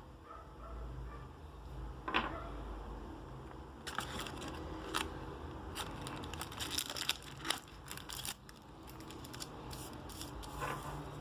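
Packaging being handled and torn open: crinkling and tearing with a dense run of sharp crackles in the middle.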